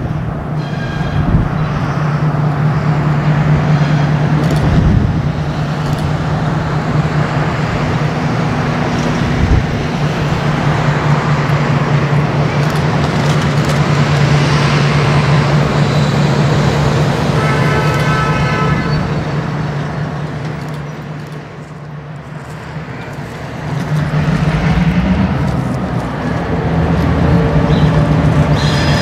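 Diesel locomotive engine running with a steady low drone as the train rolls slowly with its freight cars, with a brief high whine about two thirds through. Near the end the engine's pitch rises as it throttles up, putting out exhaust smoke.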